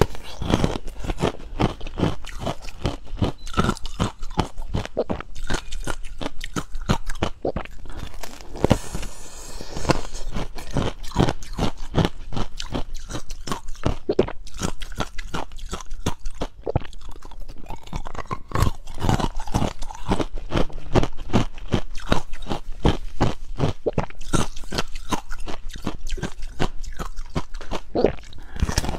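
Close-miked crunching and chewing of ice packed with frozen pomegranate seeds, a dense run of sharp crunches as chunks are bitten off and chewed.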